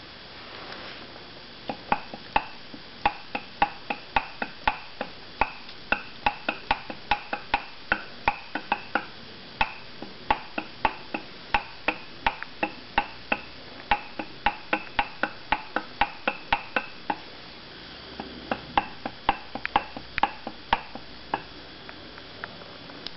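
Ring gear of an HLSD limited-slip differential worked by hand with the cover off, giving a run of sharp, slightly ringing metallic knocks, about three a second, that pause briefly then come again. This is the differential's knock being demonstrated.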